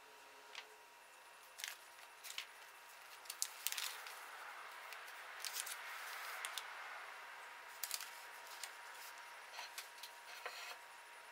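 Quiet crinkling and rustling of a plastic bag of sliced almonds being handled and opened, with scattered sharp crackles.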